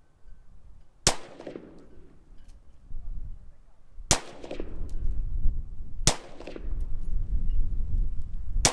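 Four single rifle shots from an AR-15-pattern rifle, each a sharp crack with a short echoing tail, spaced about two to three seconds apart. A low rumble fills the gaps between the later shots.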